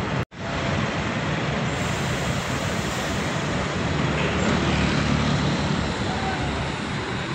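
Diesel engine of a Mercedes-Benz coach running as the bus rolls slowly past at close range. The low rumble grows louder about halfway through as the bus draws alongside, over a steady wash of bus-terminal noise.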